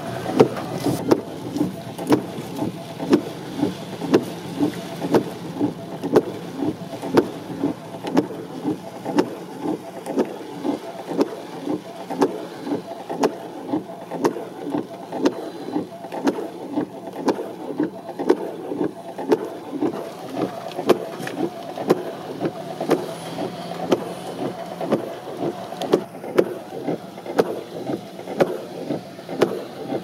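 Windshield wipers sweeping at an even pace inside a moving car in rain, about one and a half strokes a second, over a steady hum.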